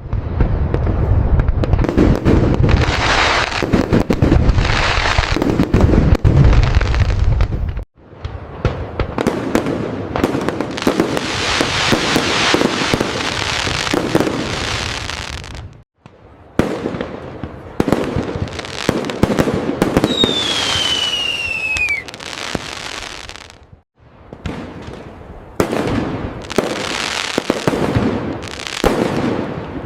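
Fireworks going off: dense crackling and popping with repeated bangs, with heavy low booms in the first stretch. A falling whistle comes about two-thirds of the way through. The sound cuts out abruptly three times, about every eight seconds, as separate recordings are joined.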